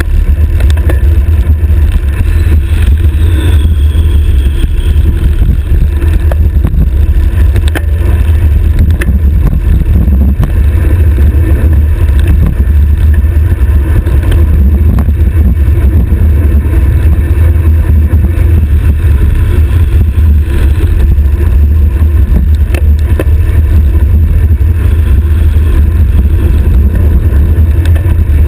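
Loud, steady wind rush buffeting the microphone of a camera mounted on a road bicycle's stem during a high-speed descent.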